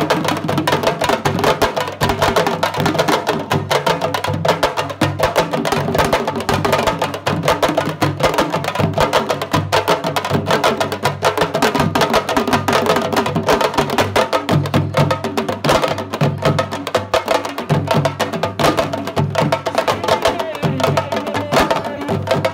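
An ensemble of Senegalese sabar drums, each struck with one bare hand and one thin stick, playing a fast, dense, interlocking rhythm with no pause.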